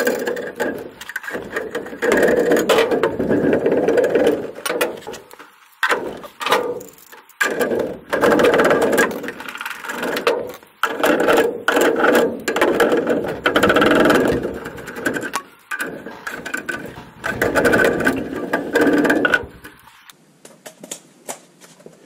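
Hand-tool work on the furnace's gas pipe fitting: repeated rasping, ratchet-like bursts a second or two long with short pauses between, dying away near the end.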